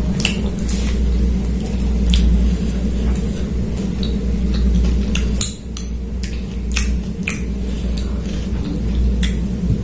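Mukbang eating sounds: a hand squishing and mixing rice with chicken curry on a plate, chewing, and a spoon scraping and clicking now and then against a ceramic bowl. A steady low hum runs underneath.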